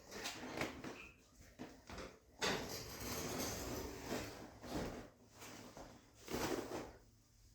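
Handling noises: a few short scuffs and knocks, with a stretch of steady rubbing about two and a half seconds in.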